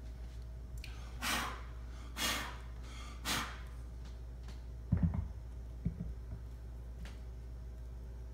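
A man breathing out hard three times, about a second apart, while straining to press a heavy polystone statue onto its tight-fitting base, followed by two dull low knocks of the statue against the base.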